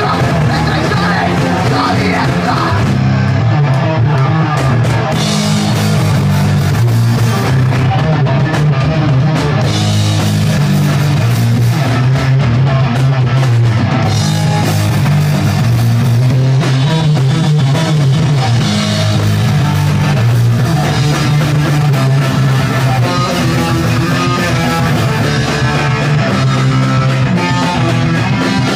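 A rock band playing live, with electric guitars, bass guitar and drum kit playing loudly and continuously.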